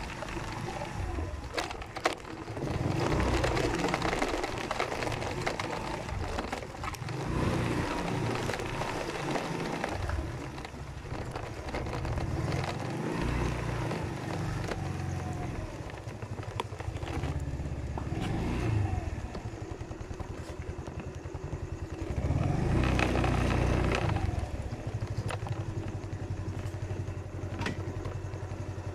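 Motorcycle engines running, growing louder several times as the engine note rises and falls, then settling to a steadier low, even throb near the end.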